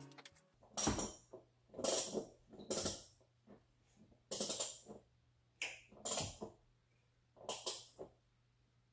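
Metal hand tools clinking and jingling against the exposed valve train of a Honda D16 cylinder head, in about seven short separate clatters.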